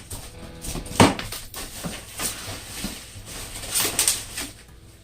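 Packaging being handled as a shipped box is unpacked: irregular rustling and crinkling with scattered knocks, the loudest a sharp knock about a second in.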